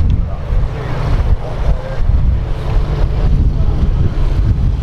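Wind buffeting the microphone in a loud, uneven low rumble, with a public-address voice faint beneath it.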